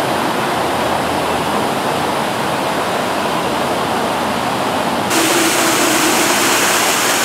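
Steady rushing of water from an artificial waterfall. About five seconds in, the sound turns brighter and hissier, with a faint steady hum under it.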